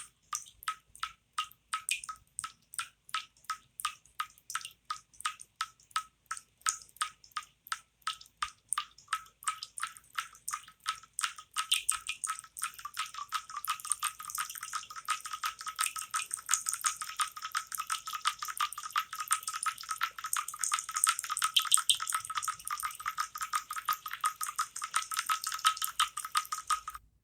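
Water drops falling into water, each one a short pitched plink. They start at about two or three a second and quicken until, about halfway through, they run together into a fast, continuous patter, which cuts off suddenly near the end.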